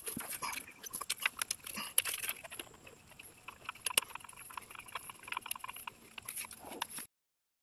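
Scattered sharp clicks and light knocks from hand work around the alternator's mounting bolt, over a faint steady high hiss. The loudest clicks come about two and four seconds in, and the sound cuts off suddenly near the end.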